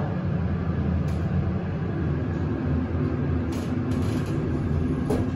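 Montgomery elevator's motor running steadily while the car travels, heard inside the cab as a low hum, with a faint higher steady tone joining about two seconds in.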